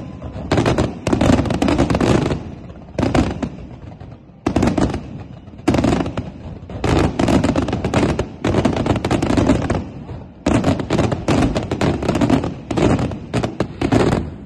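Fireworks display: rapid volleys of bursting shells and crackling, packed tight together, with brief lulls about four and ten seconds in.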